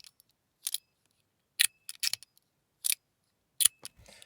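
Titanium mechanical fidget slider (Spider Slider) snapping back and forth: a series of sharp metallic clicks, about one or two a second, some with a short high ping ringing after them.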